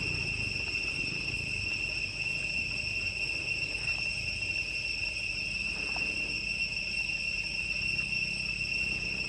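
Insects calling in a steady, unbroken high-pitched drone over a low rumble of background noise.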